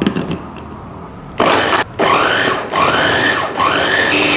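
Han River electric food chopper's motor run in about four short pulses, starting about a second and a half in. Its pitch sweeps up at the start of each pulse as it kneads bread dough.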